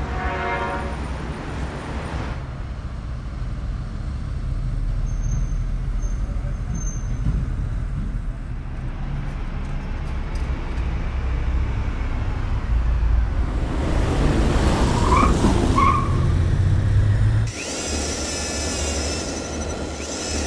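Low, steady city traffic rumble of passing road vehicles, with a few faint high tones and short chirps past the middle and a change in the mix about three seconds before the end.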